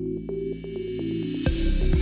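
Electronic intro music: a rising sweep builds over a stepping synth line, then heavy bass and sharp drum hits come in about one and a half seconds in.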